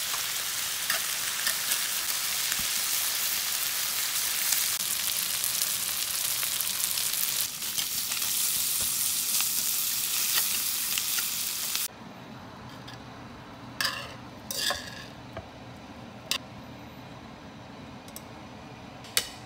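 Sliced smoked duck, onion and green onion sizzling in a frying pan while being stirred and tossed with tongs. About twelve seconds in the sizzling stops abruptly, and a few separate clicks and scrapes of the tongs follow as the food is lifted onto a plate.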